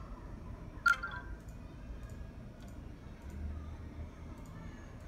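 A single sharp click with a brief metallic ring about a second in, from the phone knocking against the pile of coins it is being pressed onto, with faint handling noise otherwise.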